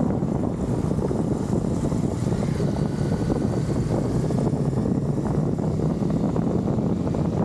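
2020 Honda CB300R's single-cylinder engine running steadily at low riding speed.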